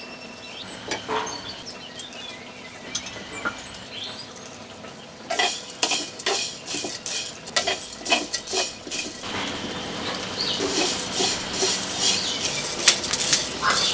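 A coconut-shell ladle stirring dry whole spices and split lentils in a clay pan, a dense rattling, scraping clatter of seeds against the earthenware that starts about five seconds in and thickens near the end, as the spices are dry-roasted.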